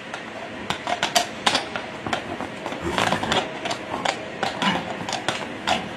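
Hooves of heavy draft horses striking and scraping on cobblestones, an irregular clatter of sharp knocks as the horses shift and step about, busiest about three seconds in.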